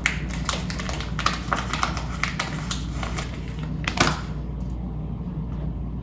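Hands handling a small package of cotton pads: quick, irregular clicks and crinkles as a cotton pad is taken out, with one louder rustle about four seconds in, over a steady low hum.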